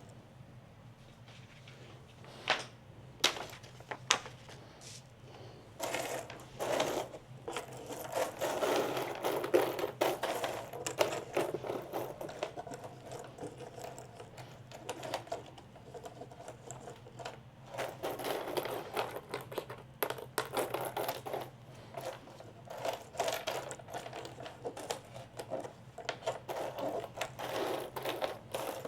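Plastic jigsaw puzzle pieces clicking and rattling as they are handled and fitted together: a few single taps early on, then bursts of rapid clicking in the middle and toward the end.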